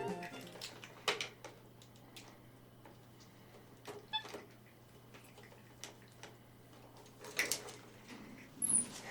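Capuchin monkey moving about and handling things: scattered light knocks and clicks, the loudest a few seconds before the end, over a low steady hum, with a brief high squeak near the end.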